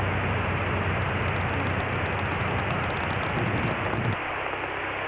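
Cessna 152 in the landing: steady rushing engine and airflow noise with a low hum from its four-cylinder Lycoming engine, heard through the cockpit intercom. The hum drops away abruptly about four seconds in.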